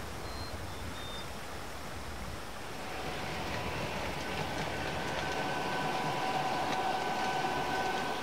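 Model diesel passenger train running on the layout's track, with a steady rolling noise that grows louder about three seconds in. From about four seconds in it is joined by a steady chord of high tones.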